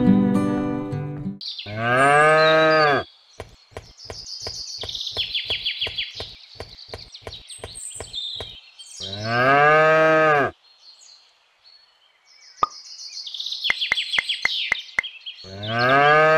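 Cow mooing three times, each a long moo that rises and then falls in pitch. Between the first two moos and again before the last, a run of quick light knocks at about four a second.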